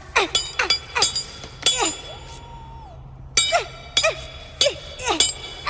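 A wrench banging on a metal machine in a rapid, irregular series of about a dozen clanging strikes with ringing, mixed with short falling grunts from a protohuman, over a low steady hum.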